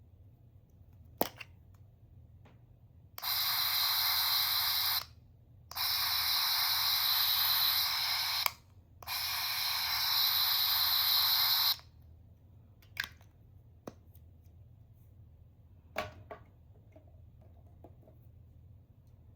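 A small sound-effect capsule toy pressed with a click, then playing a hissing, spray-like sound effect through its tiny speaker in three bursts of two to three seconds each, followed by a few light clicks.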